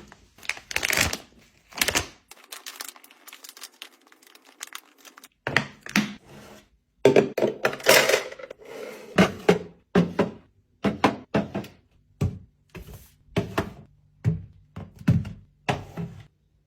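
Items being set down and arranged on refrigerator shelves: a run of separate knocks and thunks, with a longer rustling, sliding stretch about halfway.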